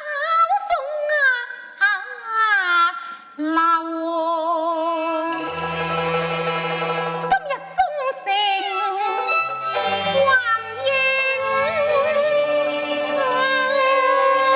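Cantonese opera accompaniment: bowed strings play a wavering, gliding melody, and a low bass line joins about a third of the way in.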